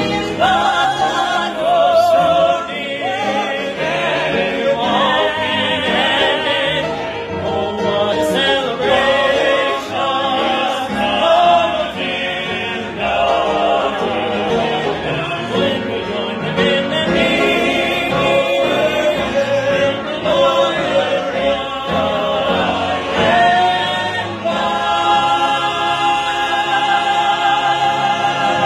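A mixed group of voices singing a gospel convention song in parts, in shape-note convention style, with upright piano accompaniment. Near the end the voices hold a long final chord.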